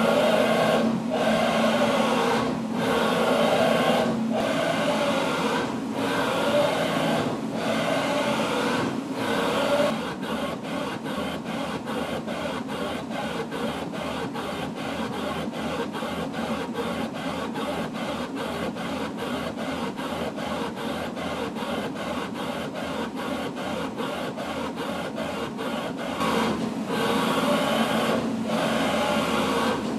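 CNC vertical machining center moving a marker in raster passes across paper, its axis drives whirring in stop-start moves every second or two, then from about ten seconds in in a fast, even stutter of about three or four moves a second, with the slower stop-start pattern returning near the end.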